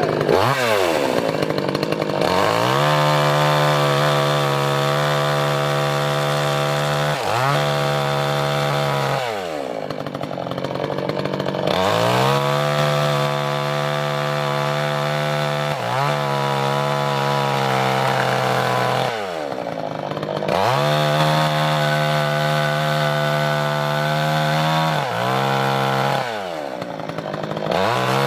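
Chainsaw cutting firewood, held at full throttle for a few seconds at a time and let back toward idle between cuts, so the engine's pitch drops and climbs back again about six times.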